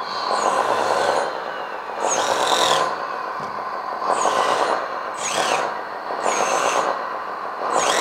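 Electric track drive motors and gearboxes of a 1/14-scale RC hydraulic tracked loader whining in short pushes of about a second as it turns, about five times. A sound module's simulated diesel engine runs underneath and rises with each throttle push.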